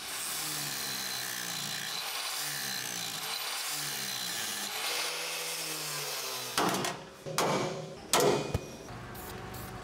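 Angle grinder with a flap wheel grinding old rivet heads down flush on a steel truck frame: a steady grinding with a slightly wavering pitch that stops about six and a half seconds in. Three short, loud noises follow, each under half a second.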